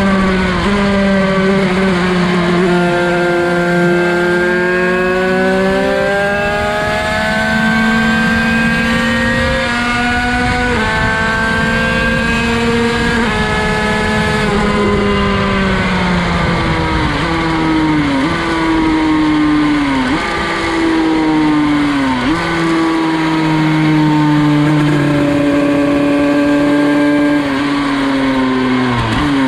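Derbi 50cc two-stroke race engine, heard from onboard at speed, revving hard through the gears. The pitch climbs and falls back, then climbs again in steps with a sudden drop at each of several quick upshifts, and falls away near the end as the bike slows.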